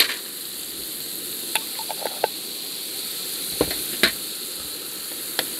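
Garlic, peppers and meat sizzling in hot oil in a large paella pan, a steady frying hiss, with several short knocks and scrapes of a utensil against the pan as the ingredients are stirred.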